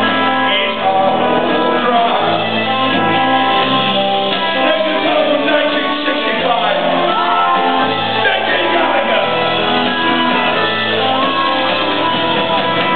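Rock band playing live with electric guitar and singing, heard from among the audience in a large hall.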